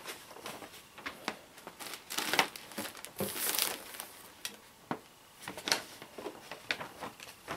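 Paper and plastic wrapping crinkling and rustling in irregular bursts as items are pulled out of a packed box by hand.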